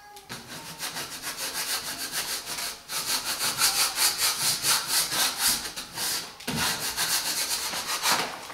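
Quick back-and-forth rubbing strokes over the paper transfer tape of a vinyl wall decal, burnishing it onto the painted wall, with two short pauses.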